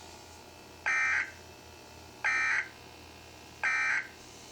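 Emergency Alert System end-of-message data bursts: three short, buzzy two-tone digital bursts, each under half a second and about a second and a half apart, signalling the end of the alert.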